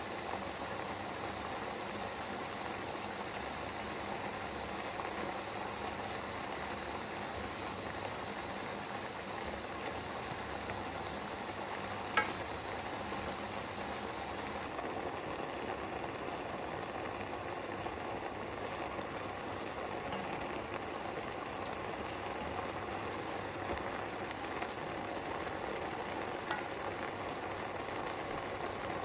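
Bulgogi hotpot steadily sizzling and bubbling in its pot, with a single sharp click about twelve seconds in.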